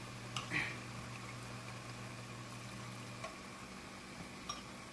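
Jalebi frying in hot oil: a steady soft sizzle, with a few light clicks of a utensil against the pan. A faint low hum cuts off about three seconds in.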